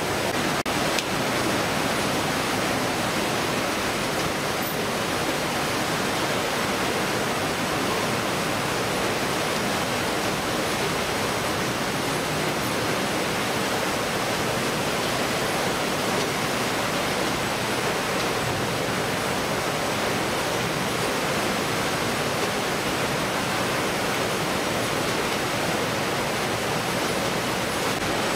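Steady rushing noise of a fish-processing line: conveyor machinery running, with water spraying and flowing over the belts.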